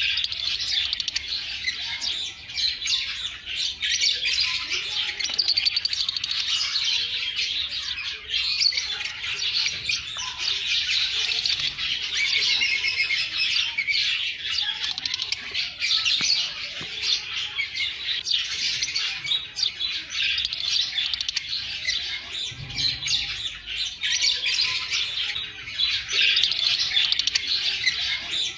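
Lovebirds chattering: a dense, unbroken mix of high chirps and squawks, several birds calling over one another.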